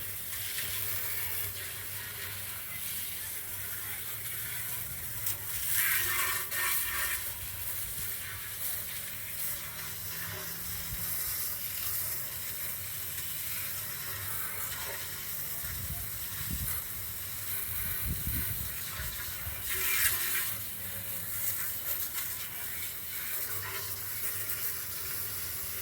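Garden hose spraying water in a steady hiss, washing stuck concrete out of the bottom of the mixer, with louder surges of spray about six seconds in and again near twenty seconds, over a low hum.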